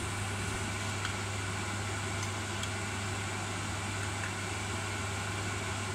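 A steady low mechanical hum under an even hiss, with a few faint light ticks.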